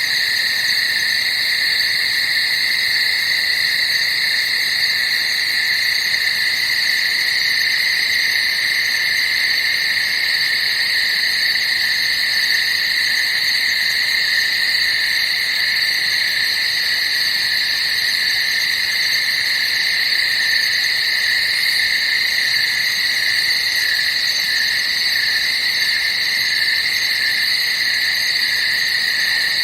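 Dense chorus of night insects calling together, a steady, unbroken high-pitched trill with no pauses.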